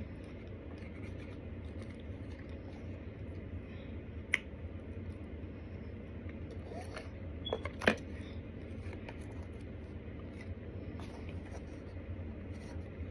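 A plastic spoon scraping and clicking in a plastic tub of cornstarch while the powder is eaten, with a couple of sharper clicks about four and eight seconds in, over a steady low hum.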